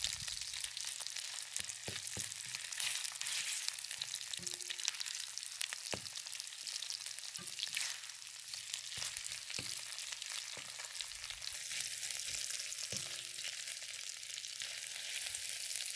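Thin beef slices sizzling and crackling in hot oil in an electric wok, with a nylon spatula knocking and scraping against the pan about nine times as the meat is turned.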